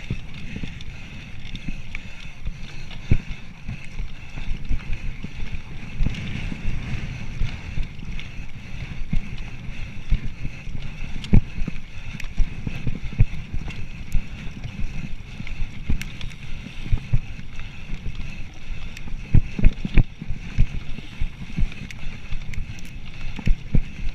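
Mountain bike ridden fast over a rough dirt trail: a steady low rumble with frequent sharp knocks and rattles as the wheels hit bumps.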